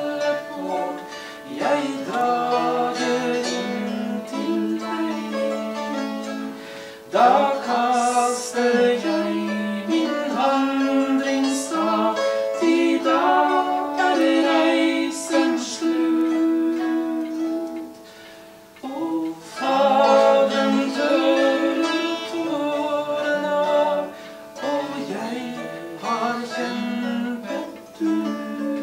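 Two Norwegian langeleiks (box zithers) strummed with plectra, playing a tune over steady drone notes. The playing thins out briefly about two-thirds of the way through, then resumes at full strength.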